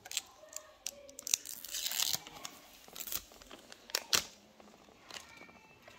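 Clear protective plastic film being handled and peeled off a Casio G-Shock watch: irregular crinkling and tearing rustles with a few sharp clicks. The densest rustling comes about two seconds in, and two clicks land close together about four seconds in.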